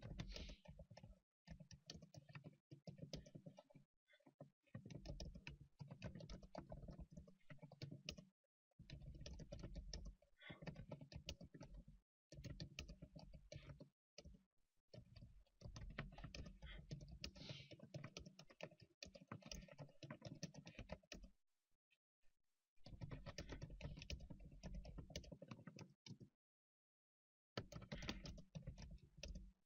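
Faint typing on a computer keyboard: quick runs of keystrokes broken by short pauses, with a longer pause a few seconds before the end.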